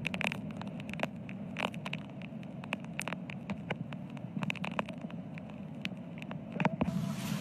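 Road noise inside a moving car on a wet road: a steady low rumble with scattered sharp crackles and clicks. A louder hiss comes in near the end.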